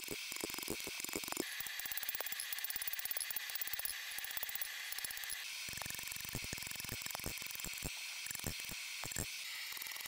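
Fast, light clicking and tapping, many small ticks a second with a few stronger knocks scattered through, over a steady high hiss: a hammer working a hot steel bar on an anvil.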